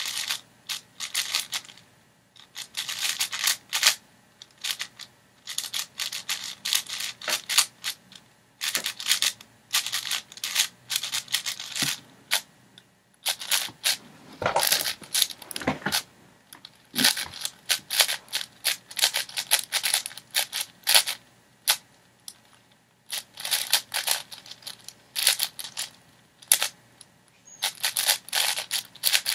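A 6x6 speedcube being turned rapidly by hand: bursts of plastic clicking and clacking as its layers turn, broken by short pauses of a second or so.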